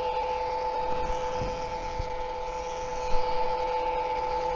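Mellif battery-powered electric oil change pump running steadily with a constant whine while it pumps gear oil into a truck's differential.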